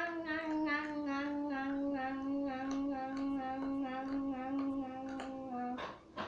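A girl humming one long note that slowly falls in pitch, pulsing evenly about four times a second. It stops near the end, followed by two sharp clicks.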